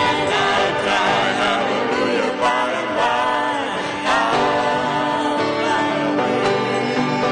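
Gospel worship music: voices singing long, bending notes over instrumental accompaniment.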